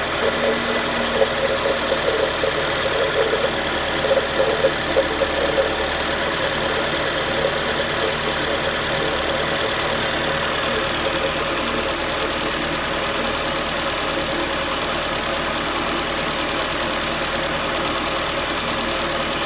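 Renault Duster engine idling while warming up from cold, with a knock over the running that is most uneven in the first few seconds before the idle steadies.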